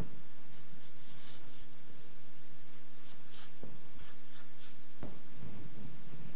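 Felt-tip marker writing on flip-chart paper: a run of short scratchy strokes between about one and five seconds in, over a faint steady low hum.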